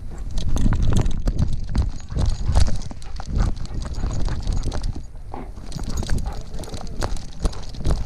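A dog's paws thudding on dirt in a fast, uneven patter as it runs, heard close through a camera strapped to its harness, with clicks and rattles from the harness and mount.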